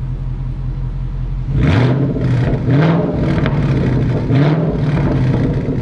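2011 Mustang GT's 5.0 Coyote V8 idling through a resonator-delete exhaust with GT500 over-axle pipes, then revved a few times from about a second and a half in, each rev rising in pitch and dropping back.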